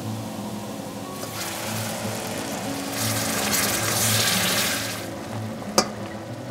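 Chicken broth ladled into a hot stainless sauté pan of flour-thickened vegetables, sizzling and bubbling as it is stirred in with a spatula; loudest a little past the middle. A single sharp click near the end.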